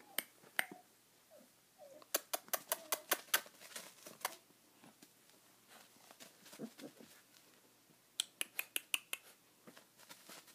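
Two quick runs of sharp clicks, several a second, the first about two seconds in and the second near the end, with faint short puppy whimpers in between.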